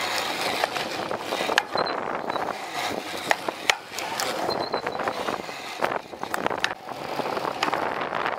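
Knobby mountain-bike tyre rolling on a concrete path, heard from a camera on the front fork, with frequent sharp clicks and rattles from the bike over bumps.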